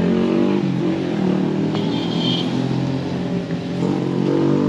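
A motor vehicle's engine running close by in the street, its note dipping and then climbing again near the end as it revs.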